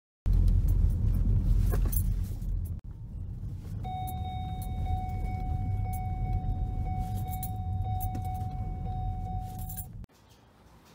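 A low, heavy rumble of a car on the move, broken by an abrupt cut near three seconds. A steady high tone is held for about six seconds in the middle, and everything cuts off suddenly near the end.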